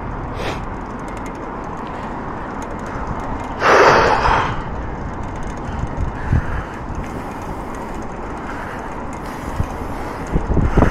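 Steady wind and road noise from riding a bicycle, with one loud breathy exhale from the rider about four seconds in.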